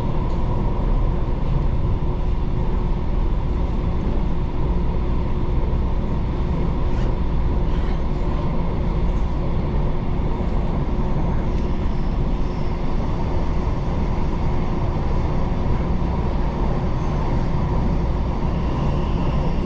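Taiwan Railway local electric multiple-unit train running at speed, heard from inside the carriage: a steady low rumble of wheels on rail with a faint steady tone above it.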